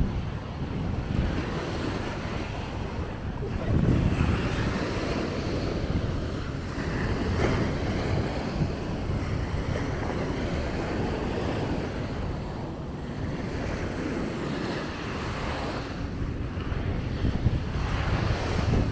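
Small waves breaking and washing up a sandy beach, swelling and easing every few seconds, with wind buffeting the microphone.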